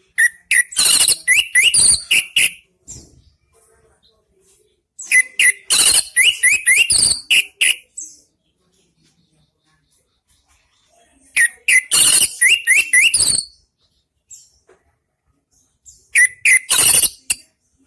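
Orange-headed thrush singing loudly in four bursts of rapid, varied phrases, a few seconds apart.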